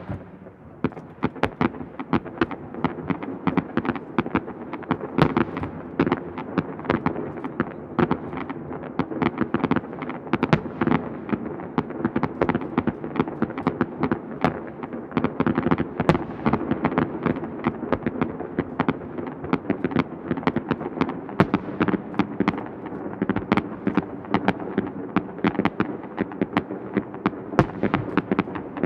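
Fireworks display: a dense, continuous barrage of aerial shell bursts, many sharp bangs and crackles a second over a steady low rumble.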